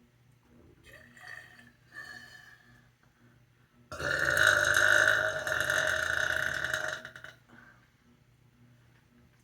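A person lets out one long, loud burp about four seconds in, held steady for over three seconds. Faint shorter sounds come before it.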